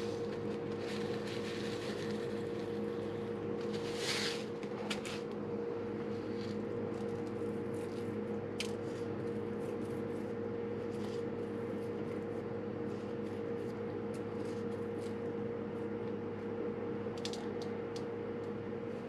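A steady electric motor hum, as from a kitchen fan or appliance, with a few brief rustles and faint clicks of things being handled, around the start and about four seconds in.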